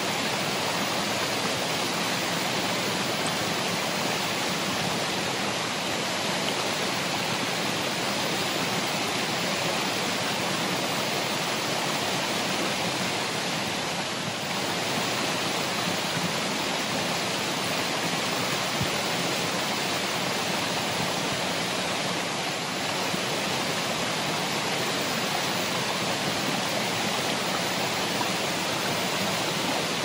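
Waterfall pouring steadily: a constant, even rush of falling and splashing water that does not change.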